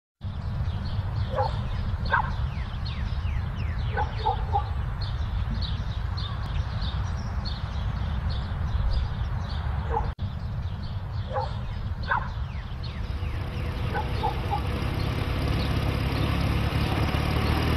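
A dog barking in short groups of barks every few seconds over a steady low rumble, with faint high chirps throughout.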